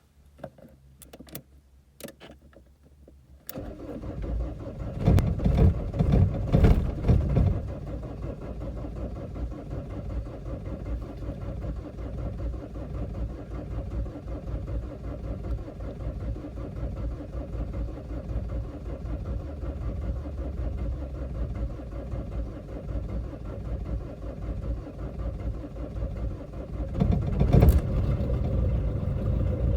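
A few faint clicks, then a car engine is cranked and comes in with loud, uneven surges over its first few seconds. It then keeps going steadily, with another brief surge near the end.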